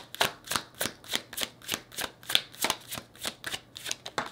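Tarot deck being shuffled by hand: a steady run of crisp card strikes, about three a second.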